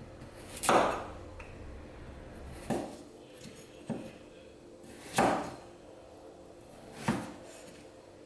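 Kitchenware being handled: five separate knocks and clinks of dishes and utensils, each with a short ring, spaced one to two seconds apart, with the first and fourth loudest.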